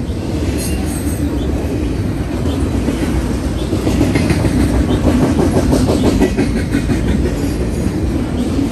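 Double-stack intermodal freight train's well cars rolling past close by: a steady rumble of steel wheels on rail, with rhythmic clickety-clack over the rail joints that is loudest from about four seconds in.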